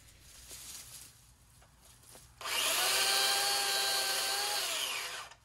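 Corded electric chainsaw, its chain freshly sharpened, starting about halfway in and running with a steady high whine for about three seconds as it cuts through an oak branch. Its pitch sags and it stops just before the end.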